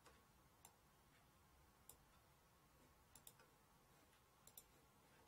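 Near silence broken by a few faint, short clicks, two of them in quick pairs, as of a computer mouse or pen being clicked.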